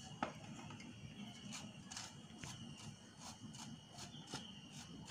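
A spatula working ground spice powder through a fine metal mesh sieve: faint, soft scraping strokes against the wire mesh, about two or three a second.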